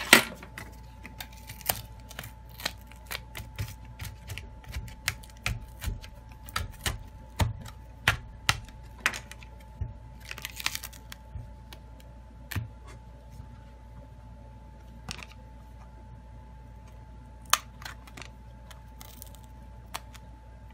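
Plastic back cover of a Samsung Galaxy A21s being pried off with a thin opening pick run around its edge. The cover's clips snap loose in a long series of sharp clicks, close together for about the first half and more scattered later.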